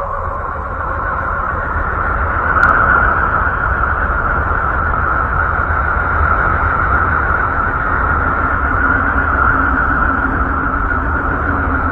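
Steady droning rumble with a deep low hum underneath and a hissing band higher up; a low steady tone joins about eight seconds in. It is a 'space sound' drone presented as the sound of the planet Mercury, the kind of clip made by turning spacecraft data into audio or by synthesis.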